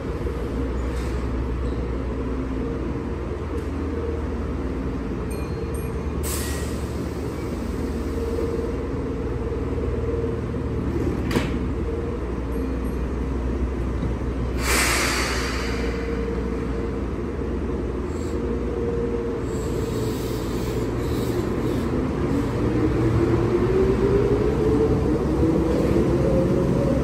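Keihan 6000-series electric train standing at the platform with a steady low hum, short hisses about 6 and 15 seconds in and a sharp click in between. In the last several seconds it pulls away, its motor whine rising steadily in pitch as it gathers speed.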